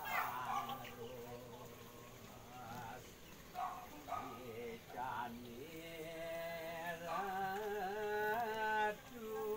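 Voices chanting a slow Balinese Hindu devotional song, drawing out long wavering notes. The singing thins out in the middle, then comes back strongly with held notes a little past halfway.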